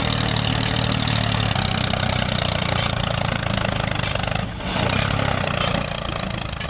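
Tractor-type engine running steadily with a low, even hum, dipping briefly about four and a half seconds in.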